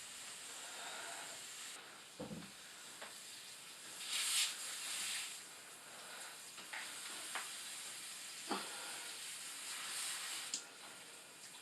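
Pressurized water hissing from a cut water supply line held shut with a thumb, with two louder spurts and a few knocks. The hiss dies down near the end.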